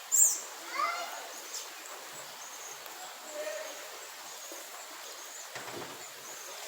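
Birds calling outdoors: a short, loud high chirp right at the start and a quick gliding call about a second in, then scattered shorter calls over a steady background hiss.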